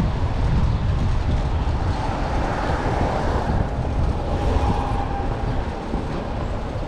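Steady rumble of passing vehicles, with a faint high whine about four seconds in.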